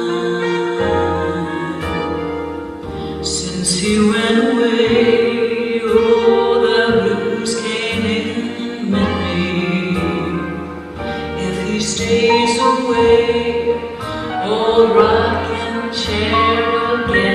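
A woman singing a slow song over instrumental accompaniment, holding long notes with vibrato.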